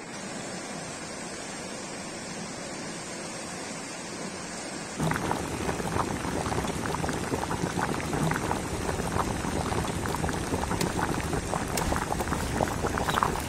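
A stream rushing steadily. About five seconds in this gives way to close, dense crackling and sizzling from a wood fire and the salt-packed pan of fish heating over it.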